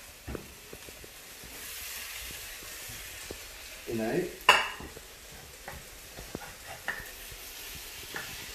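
Fish pieces sizzling in hot oil in a frying pan. There is a sharp knock about halfway through, and a few light clinks of a metal spatula against the pan in the second half.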